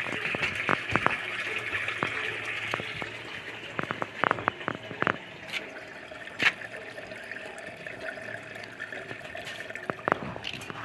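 Water running and splashing through a homemade plastic-barrel fish-pond filter and its PVC pipes, with a few sharp clicks and knocks scattered through.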